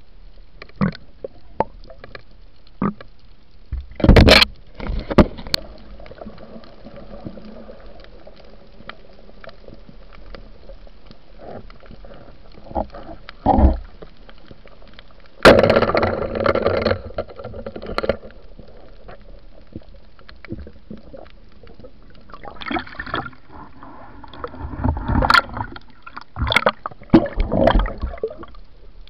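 Underwater sound through a diving camera's housing: a low steady hiss with scattered sharp clicks and knocks, and loud spells of gurgling, churning water about four seconds in, midway, and through the last several seconds.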